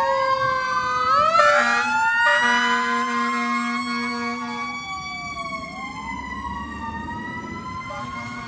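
Fire engine responding with sirens wailing up and down and two long blasts of its air horn in the first half. The sound fades as the engine pulls away.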